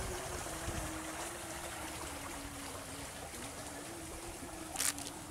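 Water trickling steadily, with a faint steady hum underneath that wavers slightly in pitch. A short, sharp noise comes near the end.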